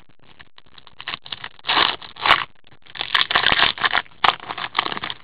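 White cotton-gloved hands handling a stack of cardboard hockey trading cards: irregular rustling and scraping in bursts as the cards are slid against each other and sorted into piles.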